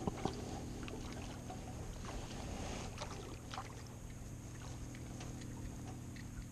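Water lapping against the side of a small fishing boat, with a few light clicks and knocks, over a steady low hum.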